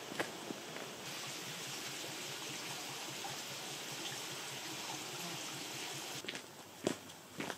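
A small stream running over stones, a steady rush of water. Near the end the water sound cuts off and a few footsteps on a gravel path begin.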